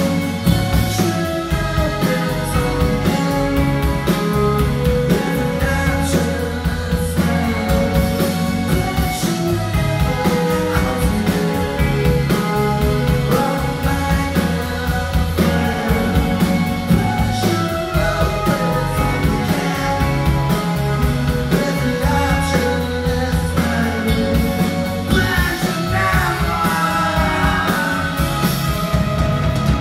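Live rock band playing a song: drum kit, bass and guitars with singing, loud and steady throughout.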